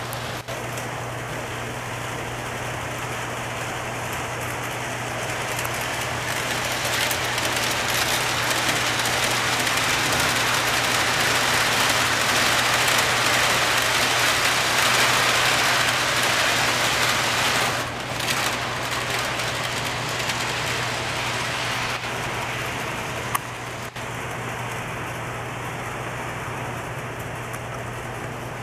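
O scale model train, a steam locomotive pulling freight cars, rolling along its track with a steady rushing rumble. The rumble swells in the middle and eases off again, over a steady low hum.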